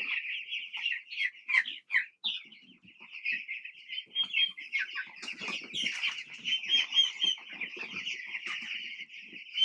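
A flock of young chicks peeping continuously, many short high peeps overlapping one another, with small taps and rustles underneath.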